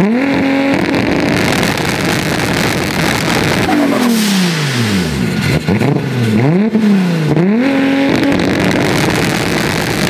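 Toyota Supra Mk4 (A80) inline-six engine being revved while the car stands still. Its pitch climbs, holds briefly and falls back to idle several times, with about four rises and drops over the ten seconds.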